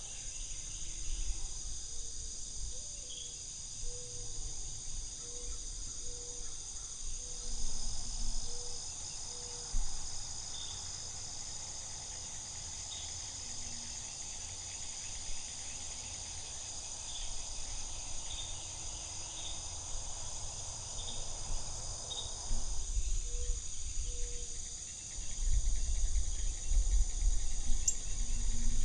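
Steady high-pitched chorus of insects in the field and woods, running on without a break. A low rumble swells near the end.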